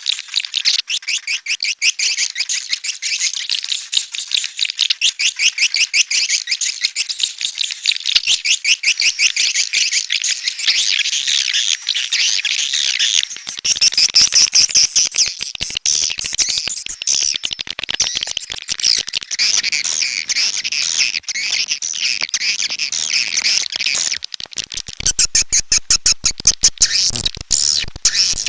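Swiftlets twittering, a dense stream of rapid, high chirps, many a second and without pause: a swiftlet lure call of the kind played to draw birds into a nest house.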